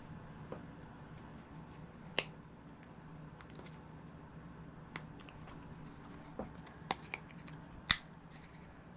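Sharp clicks and taps of plastic parts being handled and fitted back together as the LED-modded HomeLink console board goes back into its housing. Two louder clicks come about two seconds in and near the end, over a faint steady hum.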